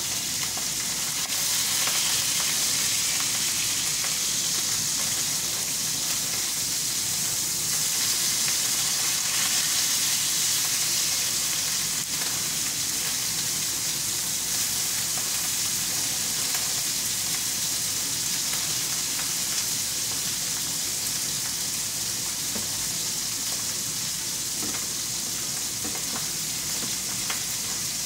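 Pieces of hairtail frying in oil in a pan, a steady sizzle, with a few light clicks as they are turned with chopsticks and a spatula.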